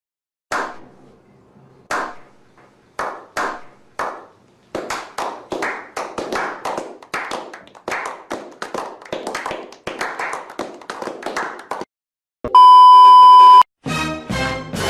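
Hand clapping: a few slow single claps that quicken into fast, continuous clapping, which stops abruptly. Then a loud, steady censor-style beep lasts about a second, and a pitched musical sound begins near the end.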